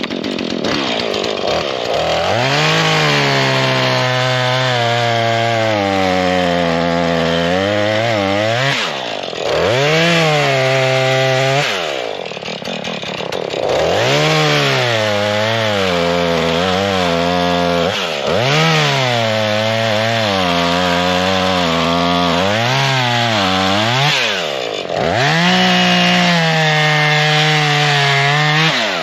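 Husqvarna 440 two-stroke chainsaw running at high revs while cutting into a stump, the engine note sagging under load in the cut and picking back up, with the throttle eased off briefly a few times.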